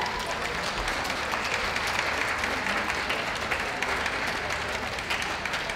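Audience applauding: many hands clapping in a steady, dense patter that eases slightly towards the end.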